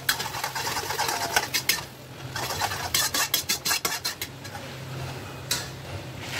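Metal spatula scraping and clinking against a kadhai as chopped onions are stirred and fry with a sizzle in mustard oil on a high flame. The scrapes come in irregular clusters.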